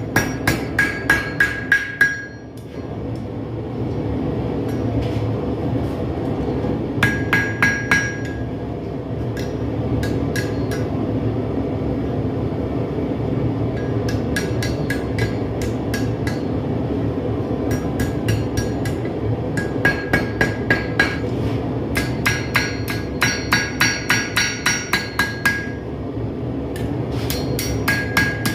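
Hand hammer striking hot steel on an anvil in quick runs of about five blows a second, the anvil ringing with each run, in six bursts separated by pauses. A steady low rumble continues underneath.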